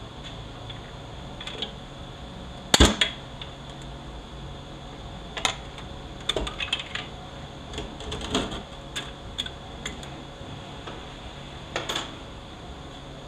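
Scattered metallic clicks and clinks of a screwdriver and loose parts inside a Toyota U250E automatic transaxle case, as a snap ring and clutch plates are worked out. There is a sharp clank about three seconds in, a run of lighter clicks in the middle and another near the end, over a steady background hum.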